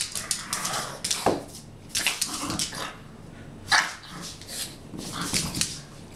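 A pug giving short barks and yips in a string of separate bursts, about five times, the sharpest one a little past halfway.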